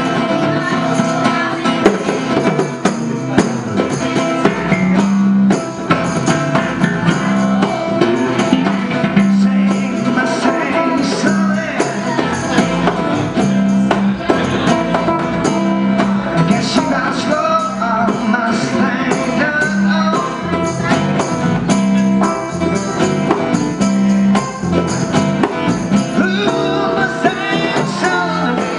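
Live acoustic band jamming in E: strummed acoustic guitars, electric guitar and hand-played bongos with a harmonica lead, playing continuously.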